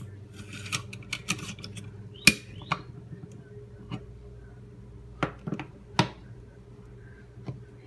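Metal clicks and scrapes of a Stanley TRA700 steel staple gun being reloaded, as the magazine's pusher rod is slid back in and the magazine is closed. A cluster of clicks and rattles comes in the first three seconds, the sharpest just after two seconds in, then a few more clicks around five to six seconds in.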